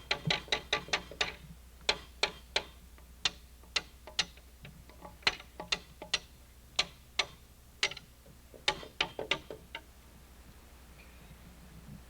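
Runs of sharp knocks, a hand tool striking a log about three or four times a second with short pauses, as a corner notch is trimmed to fit. The blows stop near the end.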